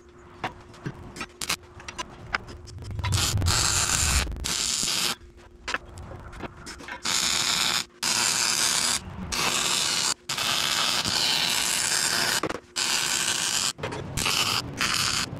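Arc welding on steel square tubing: a few light taps, then from about three seconds in a string of welds, each a steady crackling hiss lasting from under a second to about two seconds, broken by short pauses as the arc is stopped and restarted.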